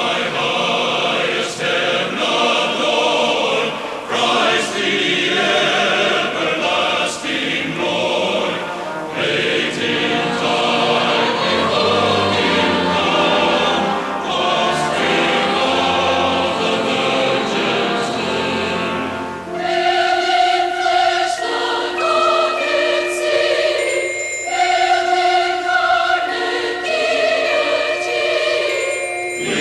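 Choir singing with musical accompaniment. About twenty seconds in it thins to a sparser passage of long held notes.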